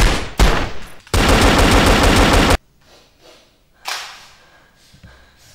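Gunshot sound effects dubbed over a toy pistol: two single shots, then a burst of rapid automatic fire lasting about a second and a half, then one more shot about four seconds in.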